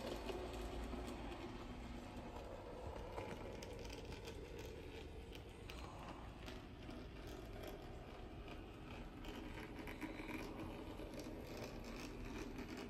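HOe narrow-gauge model train running on its layout: a faint, steady small-motor hum with light clicking and rattling of wheels on the track.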